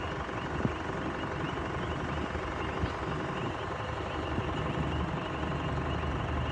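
Steady jet engine noise from an airliner idling while lined up on the runway, waiting to take off.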